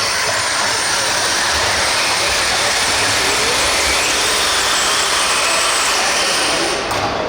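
RC pulling vehicle making a pull: its motor and drivetrain run as a loud, steady, high-pitched whir that cuts off suddenly near the end.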